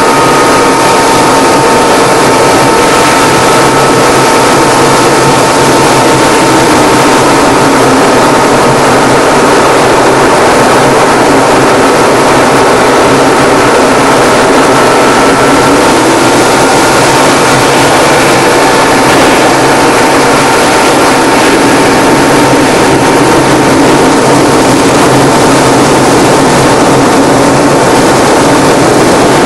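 Propeller-driven aerobatic plane's engine and propeller heard from the cockpit during manoeuvres: a loud, steady drone mixed with rushing air, its pitch shifting slightly about halfway through.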